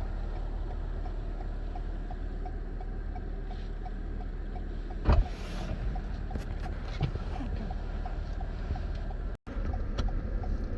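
Car cabin noise: a steady low rumble of the engine and tyres on a slushy road. In the first half there is a faint ticking about twice a second, and about halfway through there is a single loud thump.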